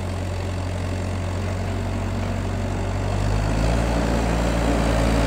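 Iveco diesel engine of a tracked digger derrick running steadily, its note changing and growing a little louder about three seconds in as the operator works the machine.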